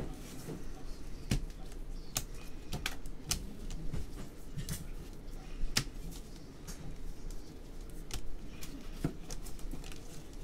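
Trading cards being flicked through and set down by hand, giving sharp, irregular clicks and snaps, roughly one every second or so.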